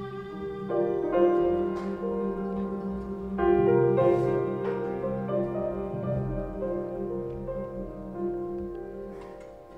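Live improvised instrumental music: long held pitched notes layered together, with new chords coming in sharply about a second in and again a little after three seconds, then slowly fading toward the end.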